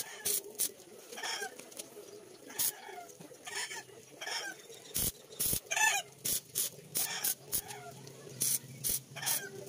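Chickens clucking, a handful of short calls spread through, mixed with a run of sharp metallic clicks and taps.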